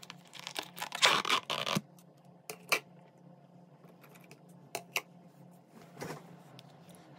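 Clear plastic lid of a takeout soup container being pried off by hand, crinkling and clicking for about two seconds, followed by a few scattered sharp plastic clicks and taps.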